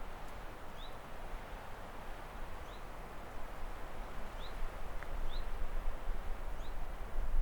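A bird calling in short rising chirps, about five of them, irregularly spaced, over a steady outdoor background hiss and low rumble.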